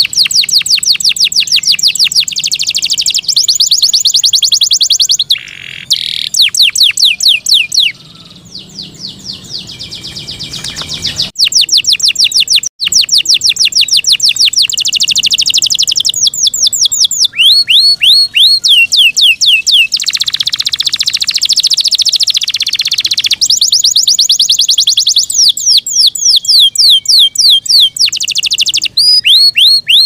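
Yorkshire canary singing: loud, rapid trills of repeated high notes, one after another with short pauses, and a softer passage about a third of the way through.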